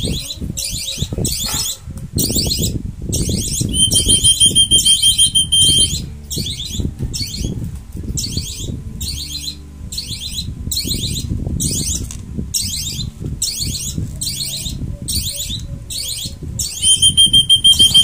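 Young birds' begging calls: rapid high-pitched rasping chirps repeated about twice a second, with a steady shrill whistle under them twice and louder near the end. Rustling and handling noise from syringe-feeding a young dove sits under the calls.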